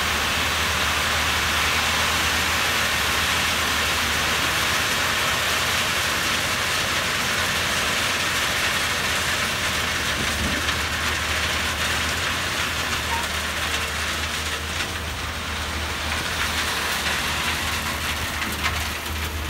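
Gravel pouring and sliding out of the raised tipper body of a Scania tridem hook-lift truck, a steady rushing hiss, over the low steady hum of the truck's diesel engine.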